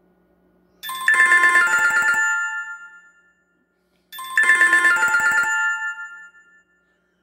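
A phone ringtone played loudly through a Fisher Bluetooth speaker: a short chiming melody of a few seconds, heard twice with a brief pause between.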